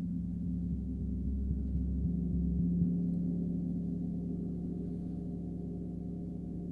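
36-inch Metatron gong played with soft fleece-headed 60 mm Olli Hess moveline mallets: a run of quick, soft strokes builds a deep, low drone that swells for about three seconds, then rings on and slowly fades.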